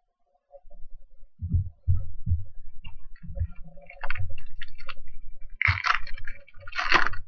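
A foil trading-card pack being picked up and torn open by hand: low bumps of handling, then crinkling and ripping of the foil wrapper, loudest in two bursts over the last two seconds.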